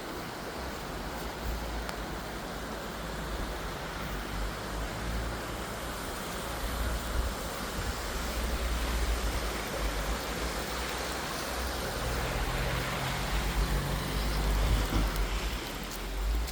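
Steady rushing of a brook in spate running high under a bridge, mixed with road traffic; a vehicle passes louder near the end.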